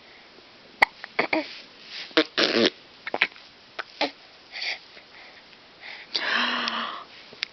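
Baby hiccupping: a run of short, sharp hiccups through the first half, with brief baby vocal sounds among them and one longer, drawn-out baby vocal sound near the end.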